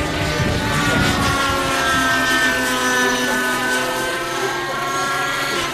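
Radio-controlled aerobatic helicopter flying overhead: its O.S. glow-fuel engine and rotor give a steady whine whose pitch drifts gently up and down.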